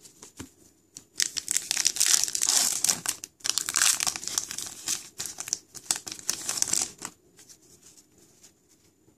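Foil wrapper of a hockey card pack being torn open and crinkled by hand: two spells of loud crackling from about a second in until about seven seconds, split by a brief pause, then only faint handling of the cards.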